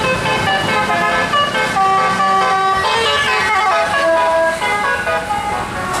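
Minibus's Basuri telolet horn with a DAV module playing a fast melody of short stepped notes, with the vehicle driving past.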